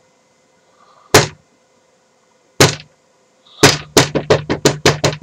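Knocking on a door: two single knocks, then a fast run of about nine knocks near the end.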